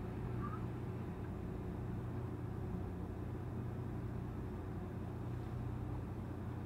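Steady low engine drone and hum of a river cruise boat, running at a constant speed.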